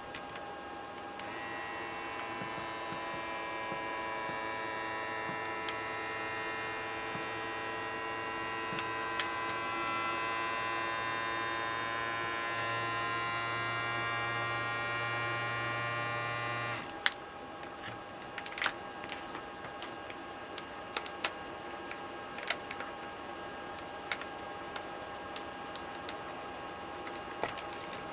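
Small electric filament-bag vacuum pump running with a steady whine, its tone shifting slightly as it draws the bag down, then cutting off abruptly about 17 seconds in. Scattered light clicks follow.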